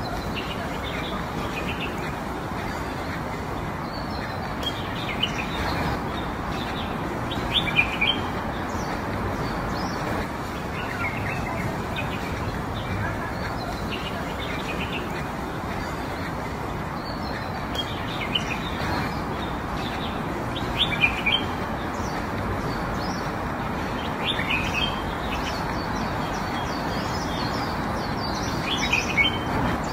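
Small birds chirping on and off in short, repeated calls over a steady background hiss.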